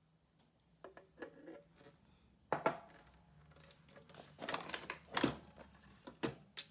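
Kitchen containers being handled and set down on a counter: a series of knocks and clatters, the loudest a sharp knock about two and a half seconds in.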